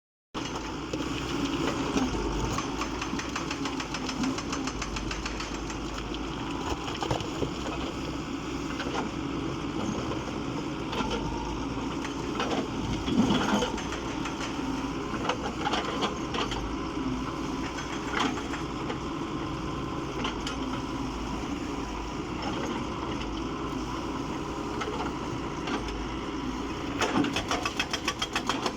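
Excavator's diesel engine running steadily, with scattered sharp knocks and clanks, turning into a fast regular pulsing near the end.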